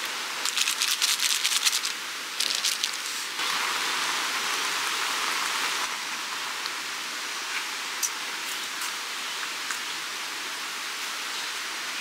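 Plastic food packets crinkling and crackling as they are handled, in two bursts over the first three seconds, over a steady hiss of rain. A few seconds in the hiss grows louder for about two and a half seconds, then settles back.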